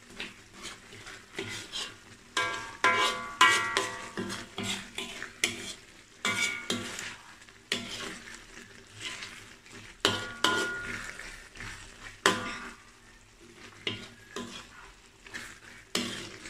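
A spatula scraping and knocking against a wok as a thick sambal with soy nuggets and potato is stirred, the sauce frying in the pan. A few strokes leave the wok ringing briefly.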